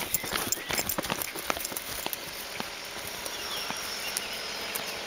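A horse's hooves stepping on soft, muddy paddock ground: a few scattered clicks and thuds in the first couple of seconds that thin out as it slows and stops, over steady outdoor background noise.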